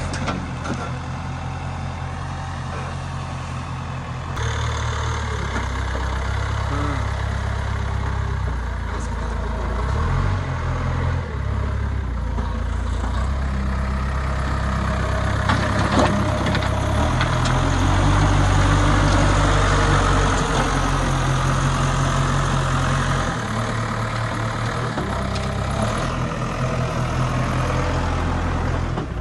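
Diesel engine of a backhoe loader running and working, its note stepping up and down several times as the load changes and loudest about two-thirds of the way through. One sharp knock about halfway.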